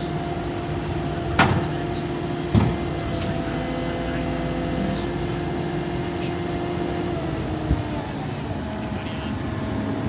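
Caterpillar 299D2 tracked skid steer's four-cylinder C3.8 diesel engine running steadily, with two sharp clunks about a second and a half and two and a half seconds in and a smaller knock near eight seconds.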